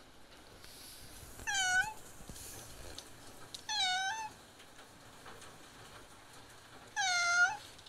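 Frightened cat meowing loudly while hiding from a thunderstorm: three drawn-out meows a couple of seconds apart, each dipping and rising in pitch.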